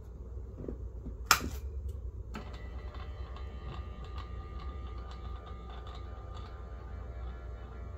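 A sharp click, then about a second later a small electric gear motor starts and runs steadily with a whine as it slowly folds down a motorized side table.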